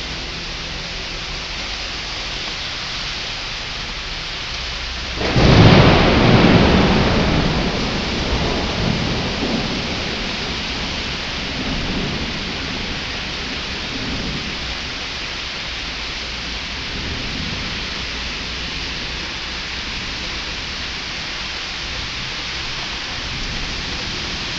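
Heavy tropical downpour hissing steadily. About five seconds in, a close thunderclap cracks suddenly and rumbles away over several seconds, followed by a few fainter rumbles.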